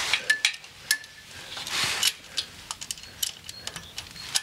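Small hand tool and screws clinking and tapping against the metal of a mower's hydraulic motor shaft as a set screw is fitted and tightened by hand: scattered sharp clicks, two of them with a brief metallic ring in the first second.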